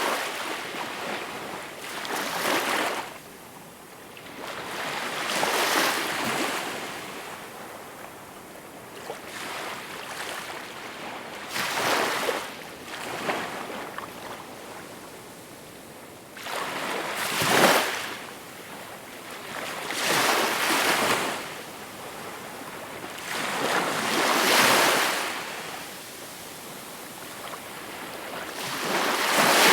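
Small waves breaking and washing up on a shore, one soft surge every three to six seconds with a hiss of water between them.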